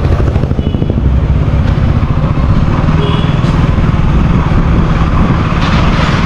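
KTM Duke 200's single-cylinder engine running steadily under way while the motorcycle is ridden, with two brief faint high beeps.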